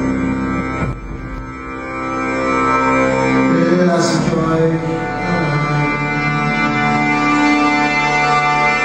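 Live electronic music: sustained, organ-like drone tones that change pitch a few times, with a brief dip in loudness about a second in.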